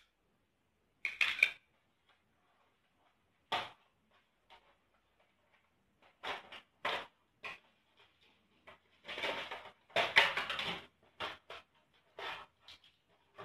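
Plastic clicks, taps and rustling as a sewing kit's small clear plastic case and moulded plastic tray are handled, coming in scattered bursts that are busiest about nine to eleven seconds in.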